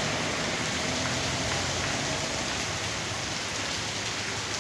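Heavy rain falling steadily, a dense even hiss of rain pouring onto surfaces.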